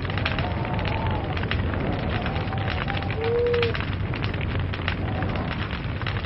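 Log fire crackling, with many sharp pops over a steady low rumble. A few short whistling tones come and go, the clearest about three seconds in.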